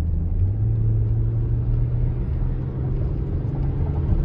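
A car driving: a steady low engine and road drone whose engine note rises slightly about half a second in, then holds.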